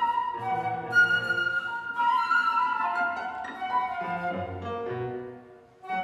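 Instrumental ensemble music: several held, overlapping melodic notes in the middle range over lower sustained notes. The sound drops away briefly just before the end.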